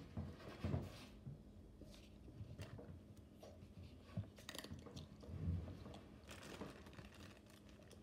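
A child chewing crunchy food close to the microphone: irregular crunches and wet mouth sounds.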